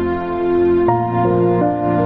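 Background music: slow, held chords, with a change to new notes a little under a second in.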